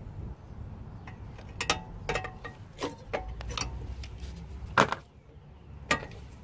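Light metallic clicks and clinks of a wire brake-pad retaining spring being worked into place on a brake caliper with pliers: a run of small clicks through the middle, the sharpest a little before the five-second mark and one more about a second later.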